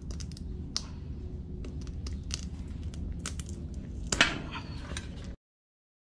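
Barnacles being picked and pried off a sea turtle's shell by fingers: a run of small clicks and cracks, with one louder crack about four seconds in, over a low steady rumble. The sound cuts out abruptly just after five seconds.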